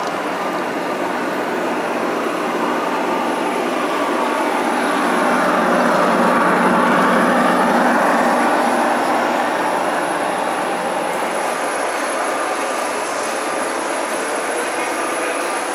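Large-scale (1:22.5) model train running along its track, with a steady rolling rumble of wheels and drive. It grows loudest about six to eight seconds in as the coaches pass close by, then settles back.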